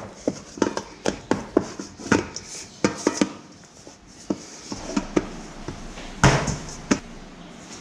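Bread dough being pressed and worked by hand around a mixing bowl to pick up the last of the flour: irregular soft knocks and taps against the bowl, a few a second, with a louder scraping rustle about six seconds in.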